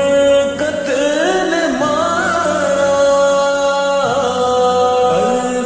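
Naat, an Urdu devotional song, slowed down and drenched in reverb: a solo voice sings long held notes that glide up and down between pitches.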